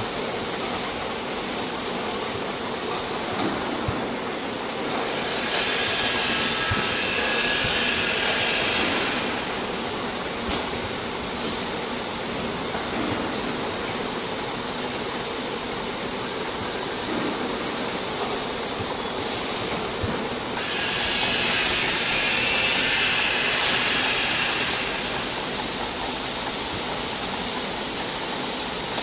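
Automatic ten-head cooking oil filling line and its chain conveyors running: a steady mechanical hum and hiss with a few faint clicks. Twice, about fifteen seconds apart, a louder hissing swells for three to four seconds.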